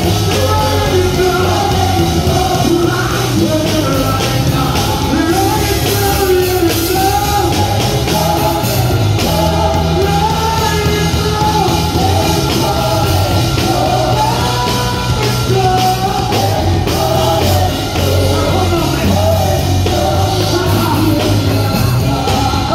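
Loud live gospel praise music: a band playing under a lead singer and backing vocalists singing into microphones through a PA.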